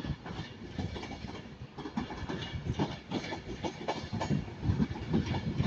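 Avanti West Coast Class 390 Pendolino electric train moving through the station, its wheels clicking rhythmically over rail joints and pointwork.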